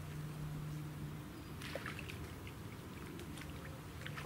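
A hooked carp splashing at the surface close to the bank while it is played towards the landing net: a run of short, sharp splashes starting about a second and a half in, over a steady low hum.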